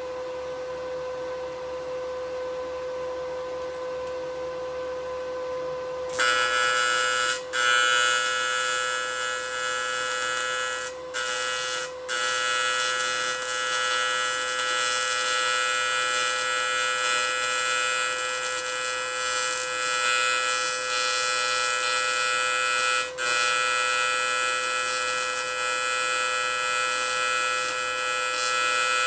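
A steady electrical hum, then about six seconds in a TIG welder's AC arc strikes on aluminium and buzzes loudly and evenly through a welding pass. The arc cuts out briefly a few times and restarts.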